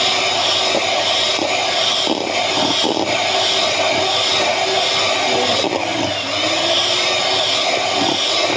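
Electric hand mixer running steadily, its twin wire beaters whipping cream mixed with cheesecake powder in a stainless steel bowl.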